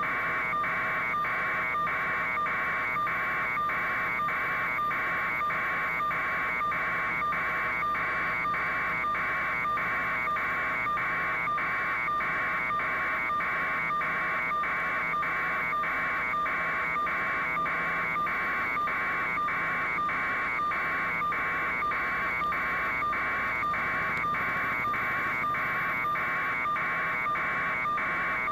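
Electronic buzzer tone that pulses on and off at a quick, even rate without letup, over a fainter steady hum.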